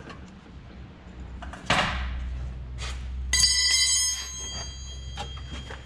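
A metallic clank about three seconds in that rings on with several clear tones for about a second and a half, as steel parts knock together while a rear axle is fitted into the differential; two short rustling scrapes come just before it.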